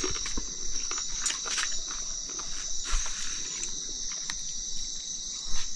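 Night-time insect chorus: a steady high-pitched trilling in two pitches, with scattered small clicks and taps over it.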